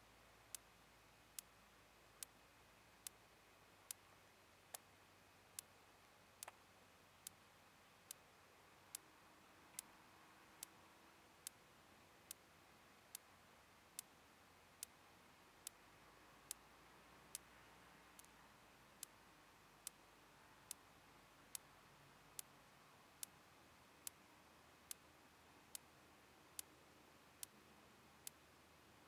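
Near silence, broken by a sharp, faint tick that repeats evenly a little more than once a second.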